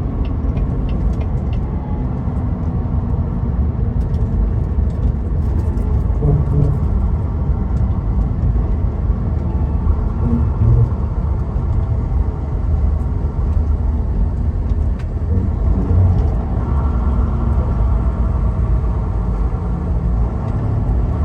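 Semi truck on the road: a steady rumble of engine and road noise, strongest in the low range, holding without a break.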